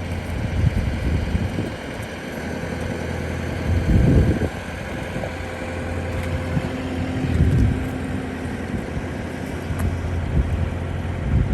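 A boat's motor running steadily while under way, with a few louder low rumbling surges over it.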